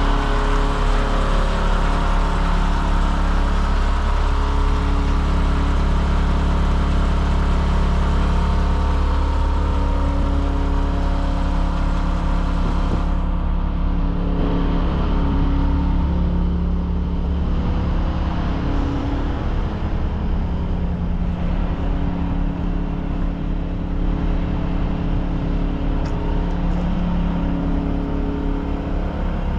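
2001 International truck's engine idling steadily. The upper hiss drops away about 13 seconds in.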